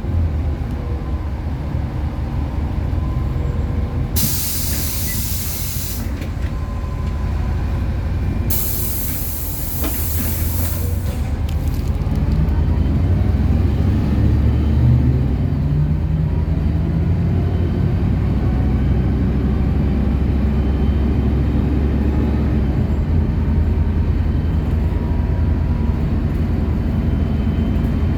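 City bus engine running, with two bursts of compressed-air hiss from the bus's pneumatic system, the first about two seconds long and the second about two and a half. About twelve seconds in the engine grows louder and stays up as the bus moves off from the stop.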